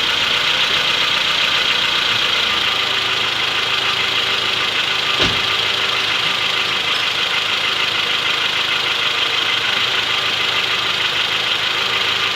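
Honda Odyssey engine running steadily at idle, with one sharp thump about five seconds in. The owner traces the engine's knock, which he says comes out when it is revved, to a worn connecting-rod bearing on the third cylinder.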